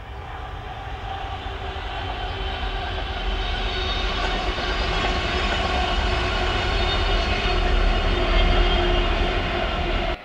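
Several Freightliner Class 66 diesel locomotives, with two-stroke V12 engines, running coupled together along the line, a low engine rumble with steady tones growing louder as they approach. The sound cuts off suddenly near the end.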